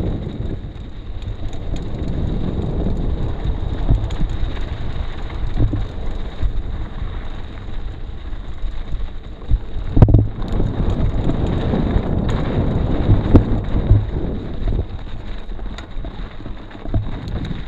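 Low rumbling noise of wind buffeting the microphone, with a sharp knock about ten seconds in.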